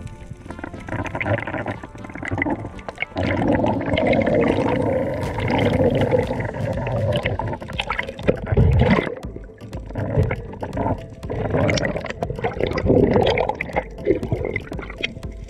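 Underwater water noise: gurgling and rushing in uneven surges, with many small clicks and knocks, as picked up by a camera submerged with a free-diving spearfisher.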